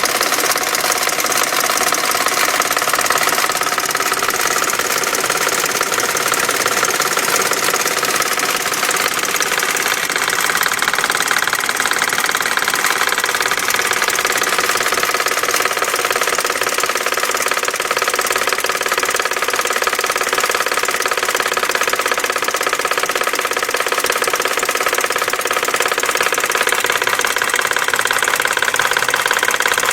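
1999 BMW 540i's 4.4-litre V8 idling steadily with a continuous knocking from the passenger side of the engine.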